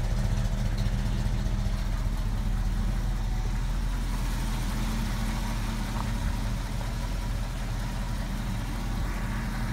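Ford F-250's 390 cubic-inch V8 idling steadily through its exhaust, a low, even rumble that grows slightly fainter in the second half.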